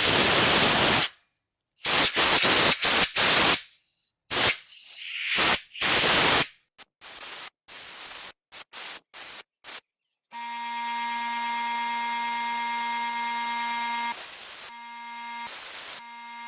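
Hissing blasts of brake cleaner and compressed air blown through carburetor passages, in a series of bursts that get shorter and quieter. About ten seconds in, a steady buzzing tone with high overtones takes over.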